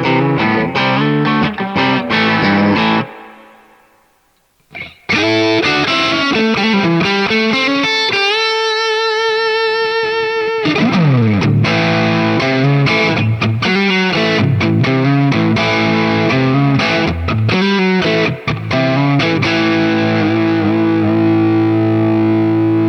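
MUSI Virgo Fusion T-style electric guitar played through distortion: quick phrases that stop about three seconds in and ring out, then resume with a held chord with wavering vibrato, a downward pitch slide, more runs, and a long sustained note at the end.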